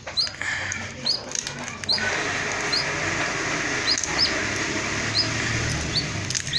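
A flock of young chicks peeping, with single high cheeps standing out about once a second over a dense background of peeping that grows louder about two seconds in.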